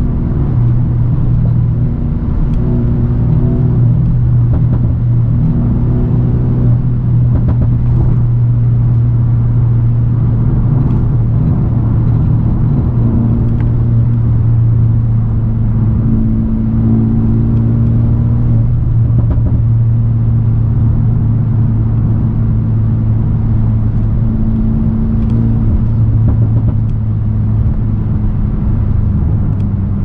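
Mercedes-AMG A35 saloon's turbocharged 2.0-litre four-cylinder engine cruising at steady revs, heard from inside the cabin over road noise. The engine note drops slightly near the end.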